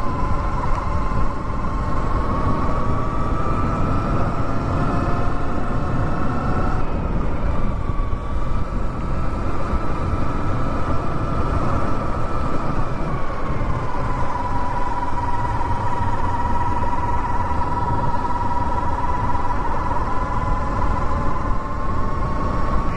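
Electric dirt bike's motor whining as it rides a dirt trail, the pitch rising and falling with speed, over a steady rush of wind and tyre noise.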